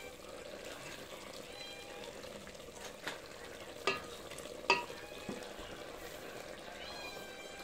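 Wooden spoon stirring chicken curry with potatoes and carrots as it simmers in an aluminium pot, under a steady hiss. The spoon knocks sharply against the pot four times, from about three seconds in to just past five.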